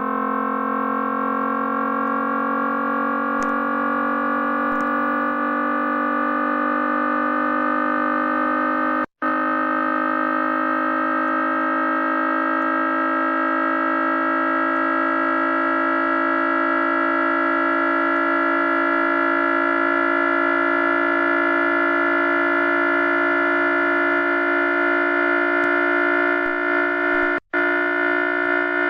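Ceiling fan motor on low speed giving a loud, steady whine made of many tones, its pitch creeping slowly upward; the sound drops out for an instant twice.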